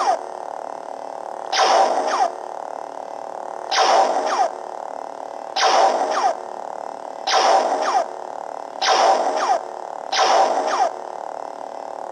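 AliExpress lightsaber's sound board playing its blaster-deflection effect over and over, six short zaps about every second and a half, each ending in a falling sweep. The saber's steady blade hum runs underneath.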